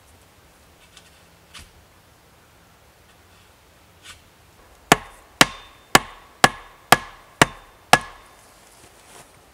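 Hatchet striking a short wooden stake: a few faint knocks, then seven sharp blows about two a second, each with a brief ringing tail.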